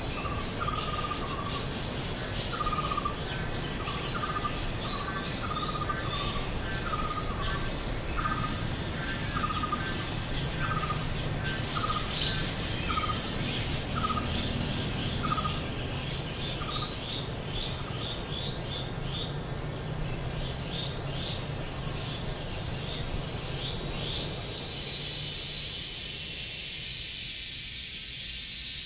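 Chorus of calling insects: a steady high-pitched trill, with a short falling call repeated about once or twice a second at a lower pitch for the first half that thins out and stops. Near the end a high hiss swells up.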